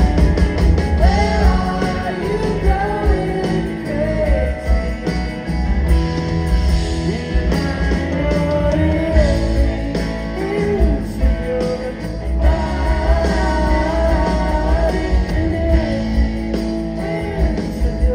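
Live rock band playing a song: electric guitars, electric bass, keyboards and drum kit, with several voices singing over them.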